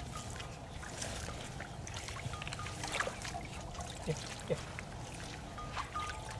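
Shallow muddy water sloshing and trickling as hands work through flooded grass, with scattered small splashes and clicks over a steady low rumble.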